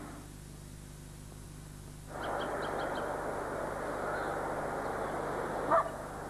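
Open-air background noise sets in about two seconds in. A bird gives a quick run of about five short high chirps, then one short, louder call rising in pitch near the end.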